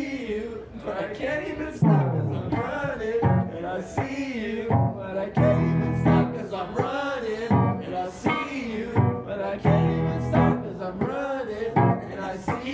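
A man singing into a microphone over a looped electric guitar part, with low notes recurring under the voice.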